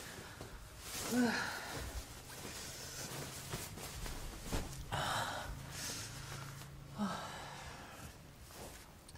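A person's soft breathing sounds: a short voiced gasp about a second in, a breathy exhale about five seconds in and another short gasp near seven seconds. A faint steady low hum sits underneath.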